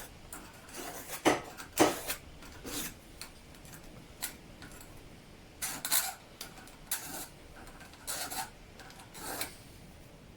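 A file scraping along the edges of a small metal bracket cut from a hinge, to take off the sharp edges. It goes in separate, irregular strokes with short pauses between them, the loudest two near the start.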